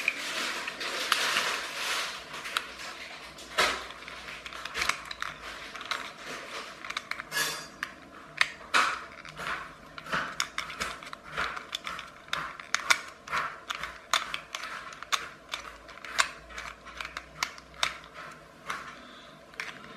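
Small plastic parts of a clockwork toy car's wheel and axle assembly being worked by hand: an irregular run of little clicks and gritty scrapes, with a few sharper clicks. Sand that got inside has roughened the parts.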